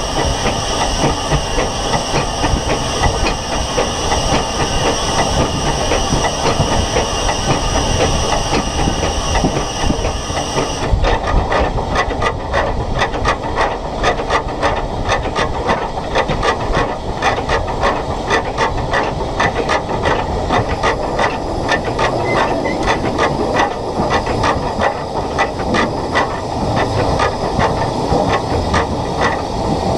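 SECR H class steam locomotive No. 263 running, with a steady steam hiss that cuts off sharply about eleven seconds in. After that, a quick, even rhythm of beats carries on over the running noise.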